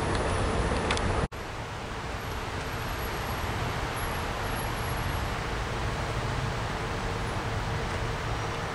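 A passing train's rumble cuts off abruptly about a second in. It gives way to a steady low rumble and hiss of distant traffic while a freight train is still far off.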